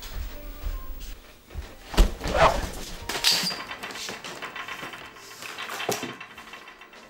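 Objects being handled on a wooden shelf: a knock about two seconds in with a short wavering squeak, light clicks and scraping, and another knock near the end.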